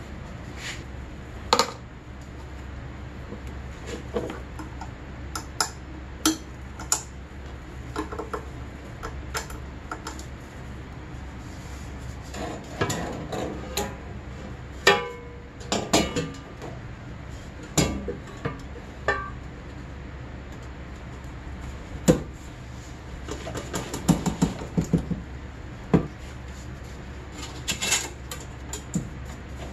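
Scattered metal clinks, clanks and taps from fitting a snowmobile's expansion-chamber exhaust pipe: the pipe being lifted and seated while springs and wire rattle against it. A few strikes ring briefly, over a low steady hum.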